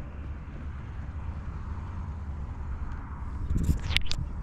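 Steady low rumble of wind buffeting the microphone outdoors on open water, with a few short, sharp sounds near the end.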